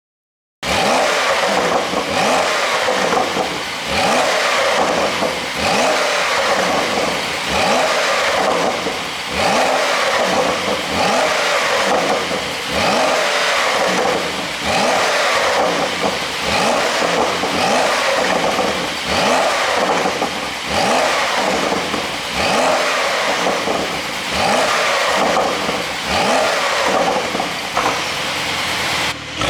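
Porsche 911 Carrera 4S twin-turbo flat-six exhaust revved over and over, the pitch rising and falling in quick blips. The sound starts suddenly about half a second in.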